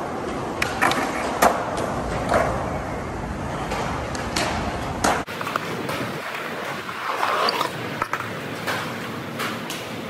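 Skateboard wheels rolling on smooth concrete, with several sharp clacks of the board in the first couple of seconds, the loudest about a second and a half in. About five seconds in the sound cuts abruptly to a lighter rolling noise with scattered knocks.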